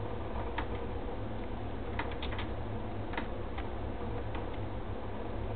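Computer mouse and keys clicking now and then, three clicks close together about two seconds in, while edge loops are Shift+Alt-clicked one after another. A steady low hum runs underneath.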